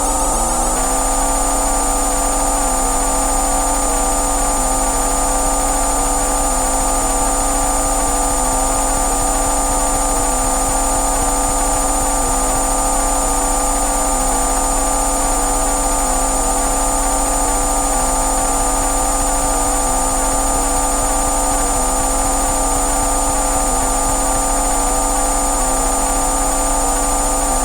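Layered synthesized electronic tones forming a steady drone, several pitches held at once, with a slight pulse that repeats about every two seconds.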